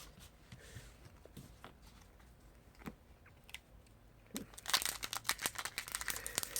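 A few faint taps of trading cards being handled, then, from about four seconds in, the dense crackling and crinkling of a foil Pokémon booster pack wrapper being handled and torn.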